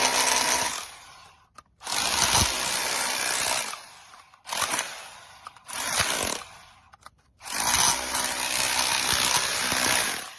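ENEACRO 1500W SDS-Plus rotary hammer drill running loudly in repeated bursts, switched on and off five times, each run lasting from about half a second to three seconds.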